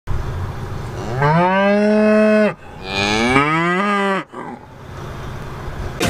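A cow mooing twice, two long moos one after the other, each rising at the start, holding its pitch, then dropping away at the end.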